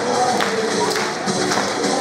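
Dance music with a steady beat, a little over two beats a second, playing for a children's group dance.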